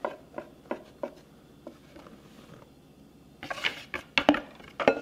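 Flour poured from a plastic measuring cup into a glass mixing bowl. There are a few light clicks at first, then a cluster of sharper knocks of the cup against the bowl near the end.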